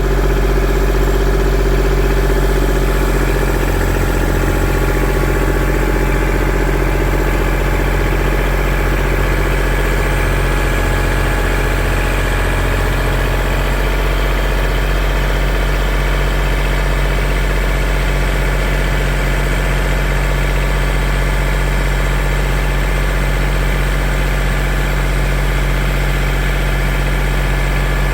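An engine idling steadily, coming up to full level in the first half-second.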